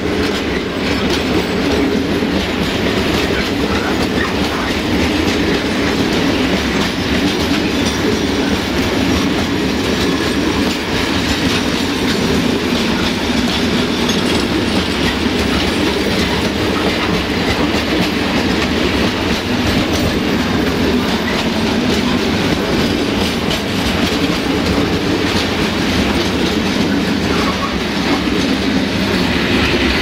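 Long freight train of hopper wagons rolling past close by: a steady, loud rumble of steel wheels running on the track.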